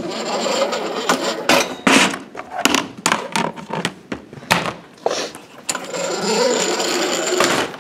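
Plastic construction-toy pieces and their tubs clattering and rattling as they are handled and packed away: many sharp knocks, with two longer stretches of rushing rattle, one at the start and one near the end.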